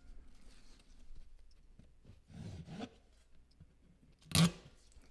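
Self-adhesive fiberglass mesh drywall tape being pulled off its roll and pressed onto the wall with a metal putty knife: quiet scraping and rustling, with one short loud burst about four and a half seconds in.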